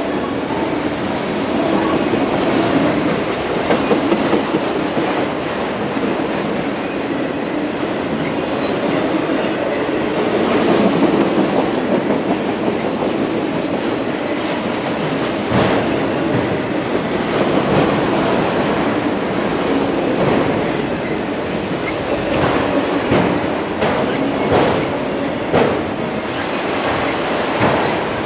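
Empty autorack freight cars rolling past close by: a steady rumble and rattle of steel wheels on rail, with repeated clicks from the wheels, more of them in the second half.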